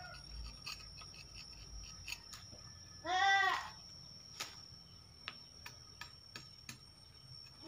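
A farm animal calls once, about three seconds in, with a short high, arched cry that is the loudest sound. Around it come scattered sharp clicks of a knife cutting hands of green bananas from the bunch.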